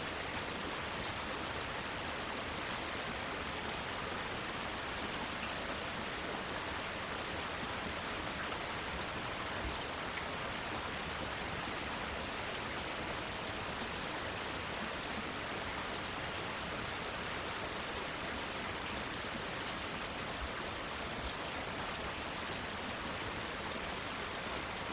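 Steady rain falling on plants and foliage, an even hiss with faint scattered drop ticks.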